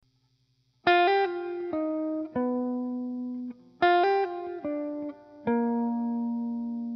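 Background music: a short melody of plucked-string notes that start sharply and ring out, beginning about a second in and repeated about three seconds later.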